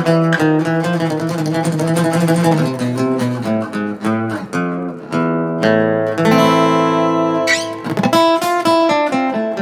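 Thinline acoustic-electric guitar played through a multi-effects unit with the mids boosted: a picked lead melody of quick notes, moving into held notes and chords, with a strummed chord near the end.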